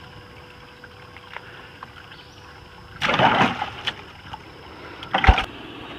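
A splashing rustle about halfway in as a freshly caught fish goes into a plastic bucket in a small aluminium boat, then a short sharp knock near the end.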